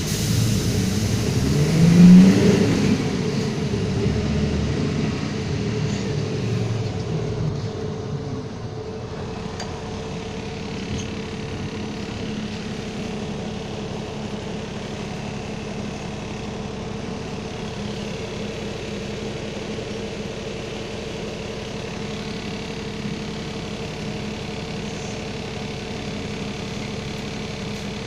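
Iveco CC170E22 bus's diesel engine revving up, loudest and highest in pitch about two seconds in, then easing off. From about eight seconds in it settles into a steady, even running sound.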